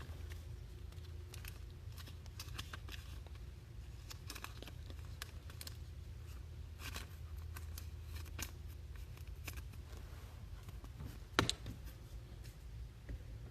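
Trading card packs and cards being handled and opened: light scattered rustling, crinkling and clicking of wrapper and card stock, with one sharper click toward the end, over a steady low hum.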